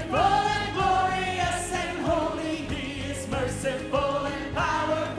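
Live gospel worship song: voices singing long held notes, each phrase swelling and wavering, over instrumental backing.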